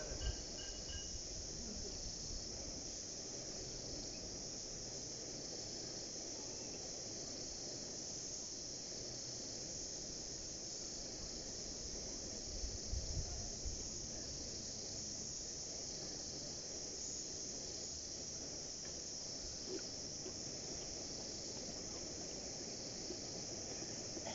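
Steady chorus of crickets chirping, with a brief low knock about halfway through.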